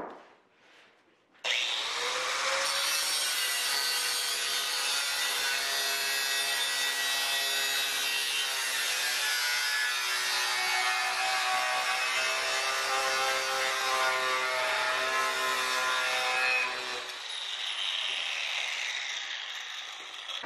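Angle grinder cutting steel, starting abruptly about a second and a half in and running steadily under load for about fifteen seconds, its motor whining through the grinding. Near the end the cut stops and the grinder winds down.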